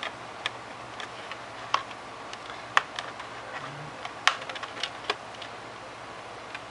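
Irregular sharp clicks and light taps, a few of them louder, as a plastic laptop memory compartment cover is fitted back onto the underside of the laptop.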